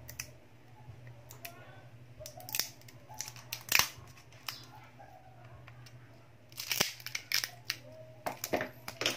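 Sharp clicks and scrapes of a thin metal pry tool working against a smartphone's frame and glued battery as the battery is levered out. The clicks come irregularly, with a cluster near the end.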